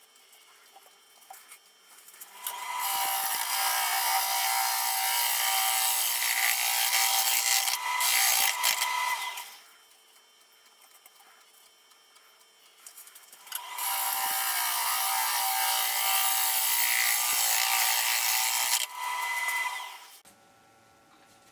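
Turning tool cutting a green wood blank on a running wood lathe, in two long cuts of a few seconds each with quiet pauses between.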